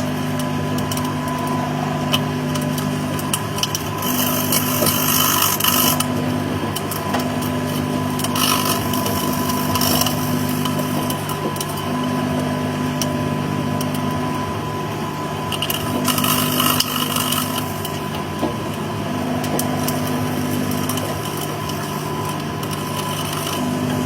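Microwave oven running with a steady hum, broken several times by short bursts of crackling hiss.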